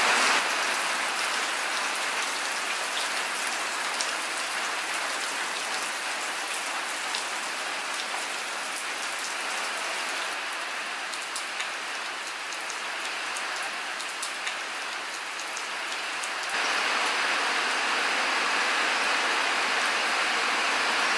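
Steady rain falling and pattering on wet ground and surfaces, with scattered single drops ticking. The rain noise grows louder about three-quarters of the way in.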